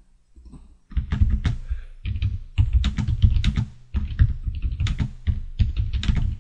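Typing on a computer keyboard: a quick run of keystrokes that starts about a second in and goes on in bursts with short pauses.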